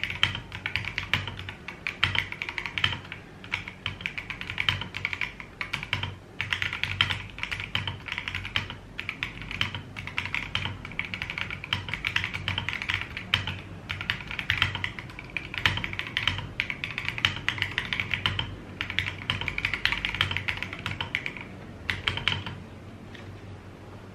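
Fast, continuous typing on an Akko Mod007 custom mechanical keyboard with linear Akko Jelly Black switches on an FR4 plate, the keystrokes coming in quick flurries. The typing stops about 22 seconds in, leaving a few single key presses.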